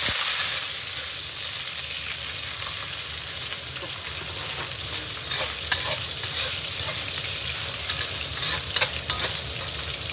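Pork belly and garlic scapes sizzling in a hot wok, stirred with a metal spatula that scrapes and clicks against the pan, with a few sharper clicks about halfway through and again near the end.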